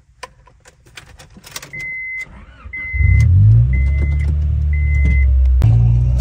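Clicks of keys and the ignition, then a warning chime beeping four times about a second apart, while the Honda Prelude's four-cylinder engine cranks and catches about three seconds in and settles into a steady idle. Near the end the engine sound jumps louder and fuller as the car gets under way.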